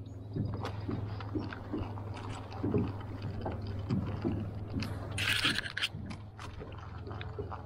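Fishing reel being cranked while a hooked walleye is reeled in toward the boat: irregular small ticks and scrapes over a steady low hum, with a short loud rush of noise about five seconds in.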